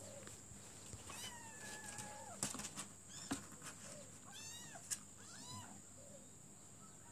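Kittens mewing: one long, high mew about a second in, then three shorter rising-and-falling mews, read by the owner as a kitten calling for its mother. Faint clicks and scrapes sound between the mews.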